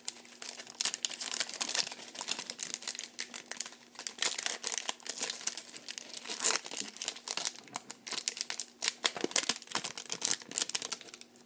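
Foil wrapper of a Bowman Chrome baseball card pack crinkling and tearing as it is peeled open by hand, a run of irregular crackles.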